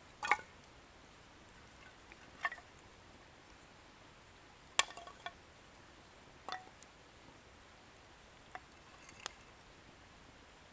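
Wood fire crackling: burning firewood gives off sparse, sharp pops and snaps, about six in ten seconds, the loudest near the start and around the middle.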